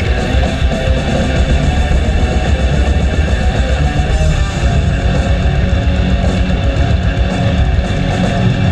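Guitar-driven rock music playing loudly and without a break.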